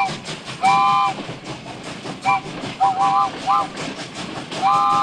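Train whistle sounding a multi-note chord: a long blast, a run of short quick toots, then another long blast near the end. Steady rapid rail clatter runs underneath.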